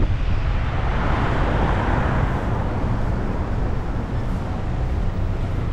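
Road traffic and vehicle engine noise heard while riding along a street: a steady low rumble under a noisy hiss, swelling about one to two seconds in.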